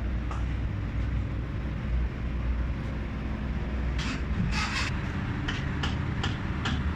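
A steady low rumble with several short sharp clicks and scraping bursts in the second half.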